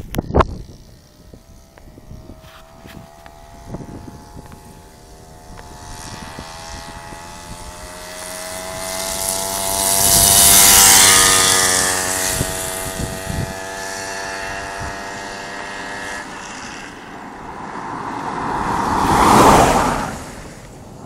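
A motorcycle engine running at a steady speed, growing louder as it approaches and passing close by about halfway through, then fading away. Near the end a minibus passes, the noise swelling and dropping quickly.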